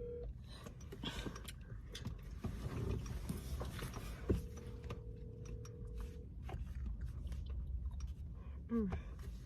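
Telephone ringback tone over a phone's speakerphone: a steady two-second ring about four seconds in, after a four-second gap from the previous ring, as the outgoing call rings unanswered.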